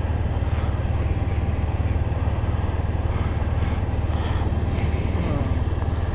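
Motorcycle engine running steadily under way, with road and wind noise, heard from on the moving bike.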